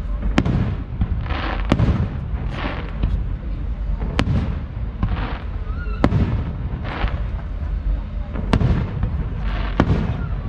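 Fireworks display: about six sharp bangs of bursting shells at irregular intervals, with noisy rushes of sound between them.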